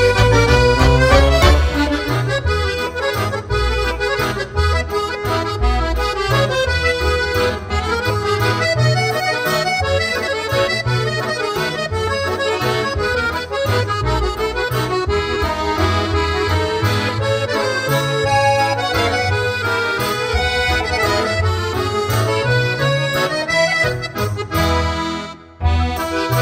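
Instrumental background music with pitched melody notes over a rhythmic bass line; it drops out briefly near the end, then picks up again.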